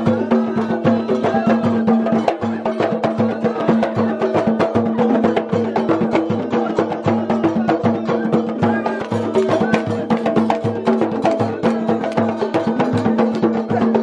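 Goblet hand drum, djembe-style, struck by hand in a fast, driving rhythm, playing traditional folk music over a steady low sustained tone.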